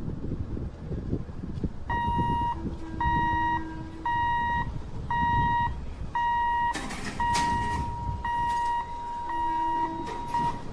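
An electronic warning beeper repeats a single high tone about once a second, each beep about half a second long, over a steady low rumble; later the beeps run almost together into a near-continuous tone. A lower tone sounds twice, briefly, alongside it.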